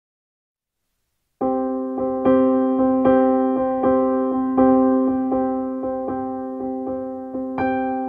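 Silence, then background keyboard music with a piano-like sound that starts abruptly about a second and a half in, a note or chord struck roughly every three quarters of a second, each fading before the next.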